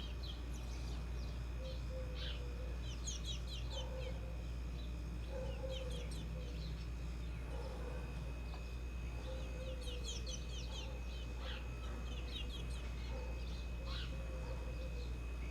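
Birds calling: short low clucking notes about once a second, with bursts of quick high chirps every few seconds, over a steady low hum.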